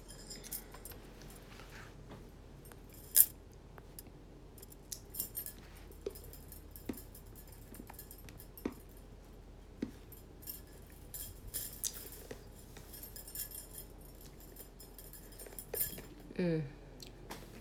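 Scattered small clicks and taps over faint room noise, with one sharper click about three seconds in. A short hummed voice sound comes near the end.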